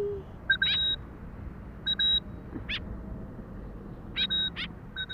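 A white-breasted woodswallow calling: short high notes and quick rising chirps, in about four clusters.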